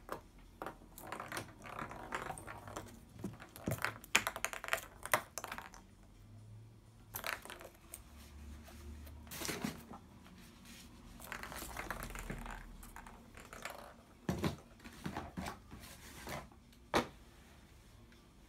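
A cat's claws and fur scratching, scraping and clicking on the hard surface of a dry bathtub as it shifts about, rolls and paws, in irregular clusters of small sounds.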